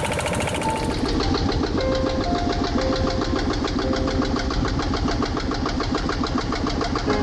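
Boat engine running steadily, a fast, even putter of firing pulses at a constant speed.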